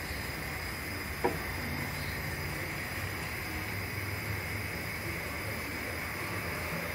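Steady air hiss of a compressed-air vacuum oil extractor drawing engine oil out through the dipstick tube, with one sharp click about a second in.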